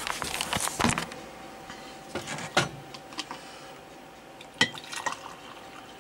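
Glass coffee carafe clinking and knocking as it is handled, with coffee poured from it into a ceramic mug. A few sharp clinks are spread through, around the start, near the middle and again near the end.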